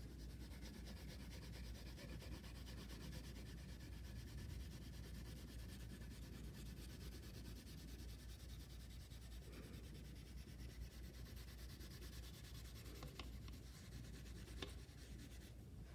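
Crayon shading back and forth across paper in quick strokes, a faint steady scratchy rub, with a couple of light clicks near the end.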